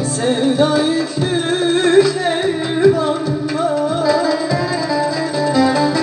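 A woman singing a Turkish song into a microphone, her melody wavering and ornamented, over a live band of plucked saz (bağlama) and keyboard with a steady beat.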